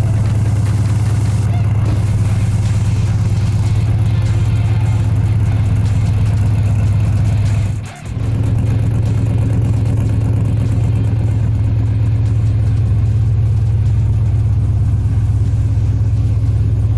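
Mid-mounted LS3 V8 of a Pro 4 off-road race truck running steadily at idle, its exhaust heard up close. The level dips briefly about halfway through.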